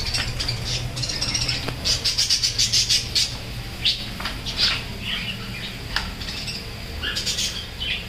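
Budgerigars chirping and squawking, with a quick run of rapid chirps about two seconds in and single calls after it.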